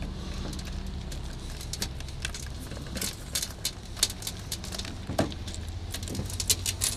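Light metallic clicks and rattles of small safety chains and the plastic guard of a tractor PTO driveshaft being handled and unhooked, scattered irregularly over a steady low hum.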